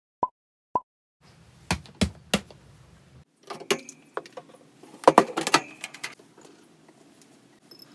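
Two short beeps in the first second, the end of an evenly spaced series. Then hard objects knock and clatter irregularly as they are handled, loudest about five seconds in.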